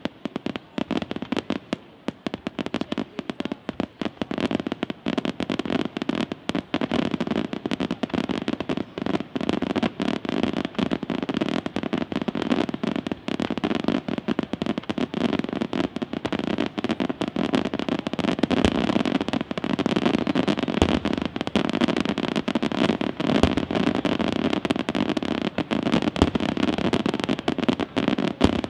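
Aerial fireworks display: shells bursting in rapid succession, a dense run of overlapping bangs and crackles, with a few heavier deep booms in the second half.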